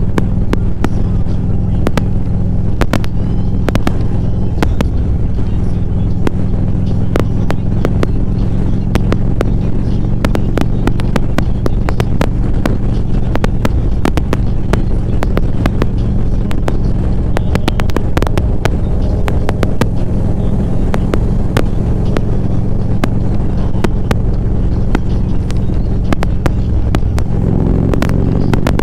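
Motorcycle engine running steadily on the road, with many short sharp crackles over it. About a second before the end the engine note rises.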